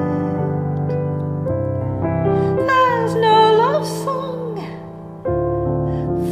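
Piano playing slow sustained chords, with a woman's voice singing a wavering held phrase in the middle.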